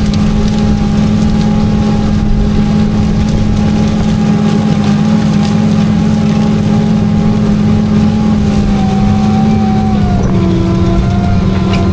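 Tractor engine running steadily under load as it pulls an in-line ripper through corn stubble. Its pitch drops slightly about ten seconds in.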